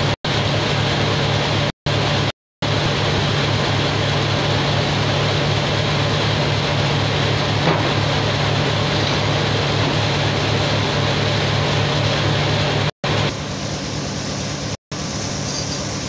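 Band sawmill machinery running with a steady hum and whirr, no log in the blade yet. The sound is broken by a few brief cuts to silence.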